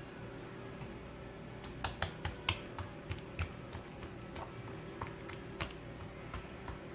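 A series of light clicks and taps from hands working thin feteer dough on a marble counter: a quick cluster about two seconds in, then a few scattered ones.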